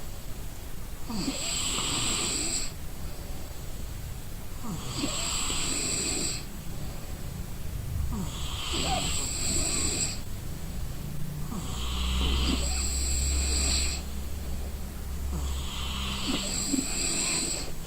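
A sleeping person snoring, one snore about every three and a half to four seconds, five in all.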